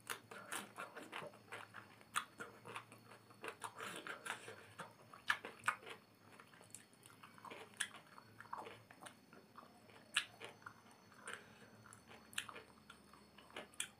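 Close-up chewing of instant noodles eaten by hand, heard as many irregular wet mouth clicks and smacks.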